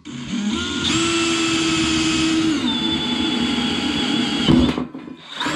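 Electric drill spinning up and driving a twist bit through thin sheet metal. The motor's steady whine drops in pitch about halfway through, then stops near the end, followed by a brief knock.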